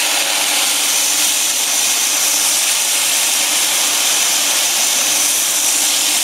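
Electric rice milk grinding machine running steadily with a loud, even, high whir while soaked rice and water are fed into its steel hopper to be wet-ground into rice milk.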